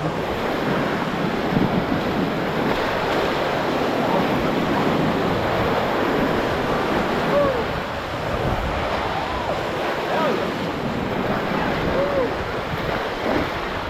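Whitewater rapids rushing steadily and loudly around a raft, a continuous churning roar of moving water.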